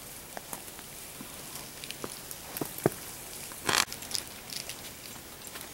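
Quiet outdoor ambience with scattered small ticks and drips, and one short, louder rustling crunch a little past halfway through.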